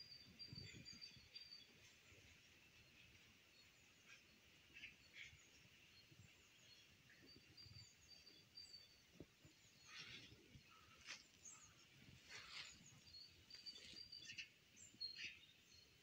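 Faint wild songbirds chirping and whistling, with scattered short calls that come more often in the second half. A few soft low thuds sound near the start.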